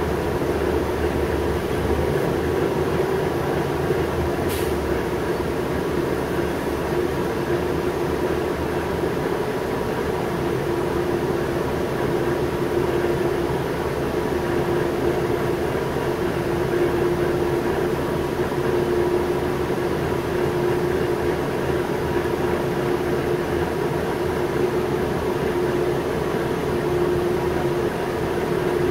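Cabin sound of a New Flyer C40LF natural gas transit bus driving at low speed: a steady engine and drivetrain hum with a held tone, and a single brief click about four and a half seconds in.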